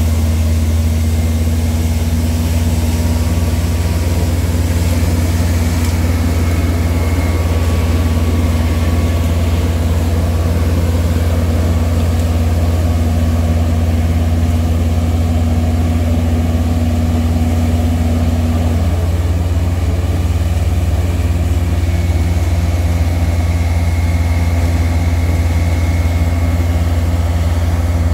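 Western Star vacuum excavation truck running at work, its Weichai diesel engine and vacuum system making a loud, steady low drone. A higher hum within it drops out about two-thirds through.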